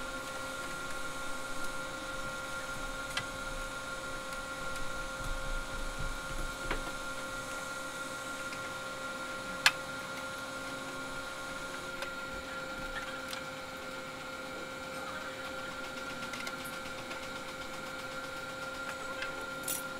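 A steady mechanical hum of several even tones runs throughout. Over it come a few light clicks and one sharp click about ten seconds in as the motorcycle's headlight is being worked loose by hand.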